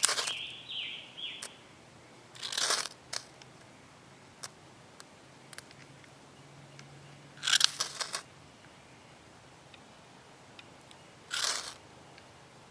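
Ferro rod struck with a metal scraper three times, each a short harsh scrape, about four to five seconds apart, with faint ticks between the strikes.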